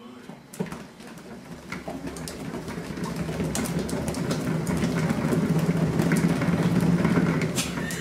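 Cat exercise wheel rumbling as a kitten runs in it, with light clicks, growing steadily louder as the wheel spins faster.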